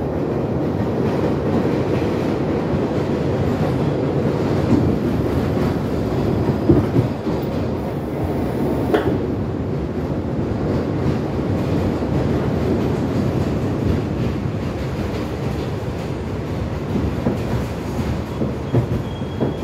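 Inside a New York City Subway R62 car running on elevated track: a steady rumble of wheels on rail. There is a brief high squeal about nine seconds in as the train slows into a station.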